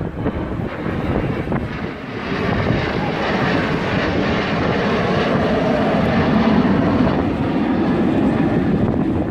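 Aircraft engine noise of a plane flying past, swelling about two seconds in and staying loud.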